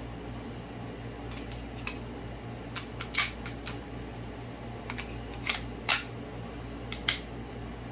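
Sig P229 pistol being handled: a series of sharp metallic clicks and clacks from its steel parts. They come in a cluster a few seconds in and again in pairs later, over a steady low hum.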